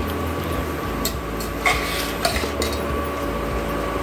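Perforated metal spatula stirring chopped vegetables in a stainless steel pot, scraping and clinking against the metal with a few sharper clinks, over a steady low hum.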